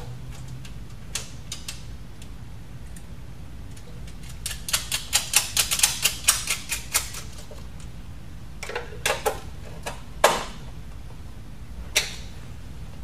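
A ratcheting hand tool clicking fast, about five clicks a second for a couple of seconds, as nuts are run down to fasten the adapter chassis to the cabinet's front panel. A few separate metallic clicks and knocks of tool and panel follow.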